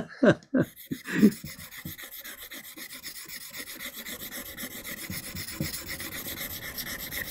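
The back of a bull-nose chisel (aisuki) rubbed back and forth under light finger pressure on a fine Japanese finishing stone (shiageto): a quick, even rhythm of scraping strokes that starts about a second and a half in and grows slightly louder. The rubbing polishes out the scratches left by the 1000-grit stone. A few brief, louder sounds come in the first second.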